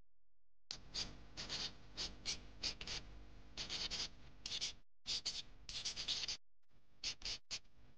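Short scraping and rustling strokes in quick, irregular succession, several a second, with a couple of brief breaks.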